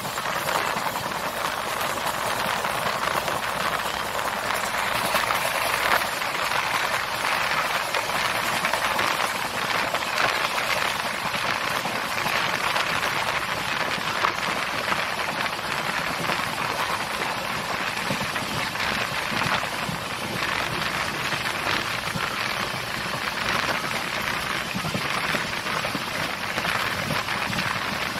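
Steady rushing noise of a passenger train in motion, heard from on board: wheels on the rails and air rushing past, with a fine crackle over a low rumble.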